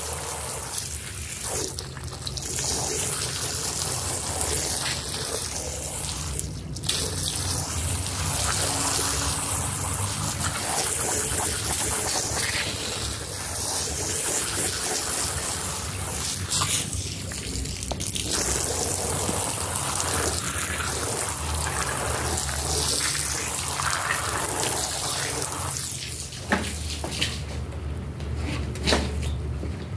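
Water jet spraying onto a small felt rug as it is rinsed, a steady hiss with a few brief pauses, over a steady low hum. The spray eases off near the end.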